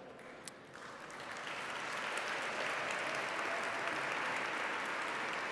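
Audience applauding in a large hall, swelling in about a second in and then holding steady.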